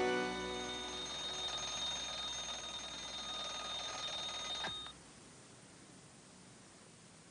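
Westclox Baby Ben alarm clock ringing steadily, until a sharp click about four and a half seconds in cuts it off as it is slapped silent.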